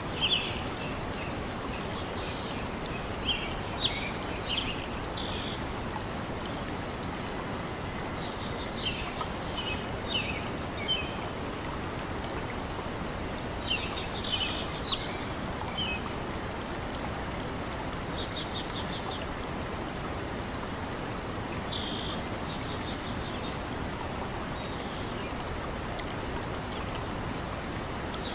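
Steady rush of running water, with small birds chirping in short scattered bouts, some as quick trills.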